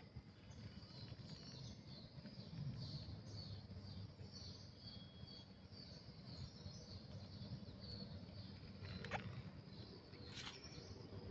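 Faint outdoor ambience: steady high-pitched chirping over a low rumble, with a couple of sharp clicks near the end.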